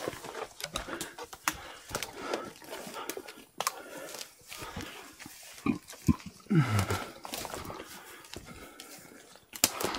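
Footsteps pushing through forest undergrowth: grass and leaves rustling, with many small twig snaps and clicks. About six and a half seconds in comes a short low voice-like sound that falls in pitch.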